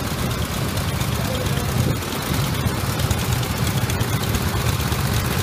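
Rental go-kart engines running at idle and low speed, several karts at once: a steady low rumble with rapid firing pulses.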